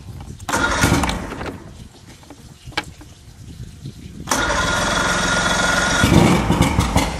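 Mercury outboard motor being cranked by its electric starter in two tries on a first cold start after winter storage: a short crank about half a second in, then a longer one from about four seconds in with a steady whine. Near the end the engine fires heavily for a moment but doesn't keep running.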